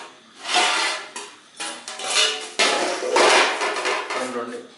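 Stainless-steel pot lid and plates clattering and scraping against each other, ringing, as the lid is lifted off a large steel pot and set down; about three clatters.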